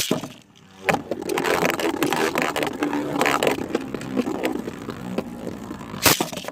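Two Beyblade spinning tops launched into a plastic stadium, spinning and clashing with a dense, rapid clatter, with a loud sharp hit near the end.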